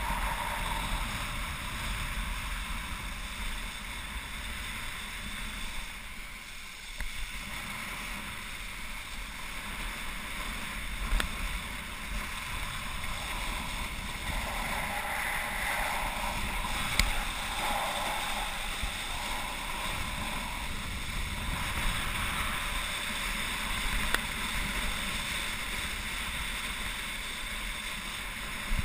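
Wind rushing over a helmet camera's microphone while a wakeboard planes across lake water, its spray hissing as it cuts turns, with a few sharp knocks.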